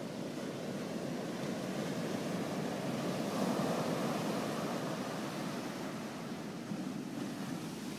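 Ocean surf breaking and washing up a sandy beach: a steady rushing wash that swells about halfway through, then eases.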